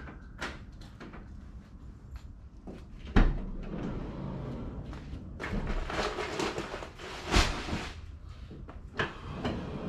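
Bags and gear being loaded into a Ford van: a heavy thump about three seconds in, a few seconds of rustling, then sharp knocks near the end.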